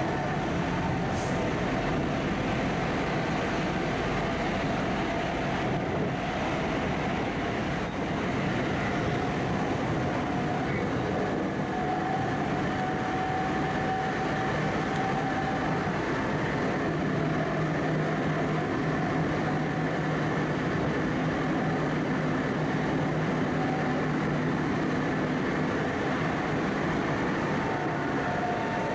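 Tokyo Metro 05 series chopper-control train running, heard inside the passenger car: a steady rumble of wheels and running gear with faint level whining tones from the high-frequency chopper control and traction motors.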